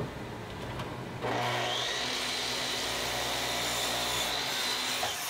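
Makita miter saw switched on about a second in, its motor spinning up to a steady high whine as the blade cuts across a spruce 2x6 board. The sound stops abruptly at the end.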